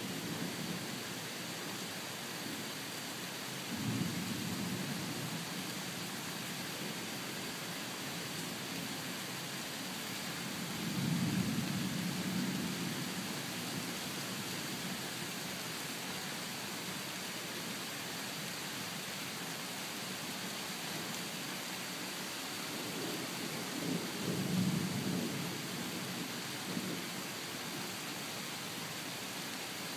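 Thunderstorm: a steady hiss of rain, with low rumbles of thunder swelling up three times, about four seconds in, a little before the middle, and again past the three-quarter mark.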